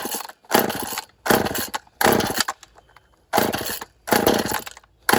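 Two-stroke chainsaw being pull-started by hand: about six quick starter-cord pulls, each with a brief burst of engine cranking and a longer pause near the middle, as the cold saw fails to keep running.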